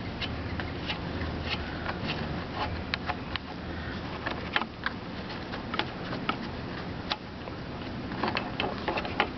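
Scattered light clicks and taps of a screwdriver and fingers working a screw and parts loose around the air cleaner and carburetor linkage of a Briggs & Stratton mower engine, over a steady low hum.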